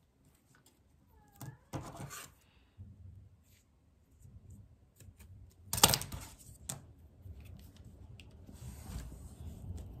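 Red-liner double-sided craft tape being pulled off its roll, a sharp rip about six seconds in, among rustling and tapping as paper strips are handled on a table.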